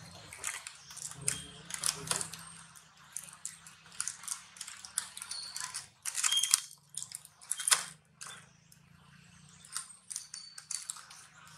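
Plastic water bottle crackling and crinkling in irregular clicks as a young long-tailed macaque bites and handles it, with a few short high peeps and a faint low hum beneath.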